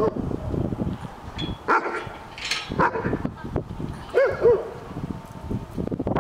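A dog barking in short calls, with two quick barks close together about four seconds in.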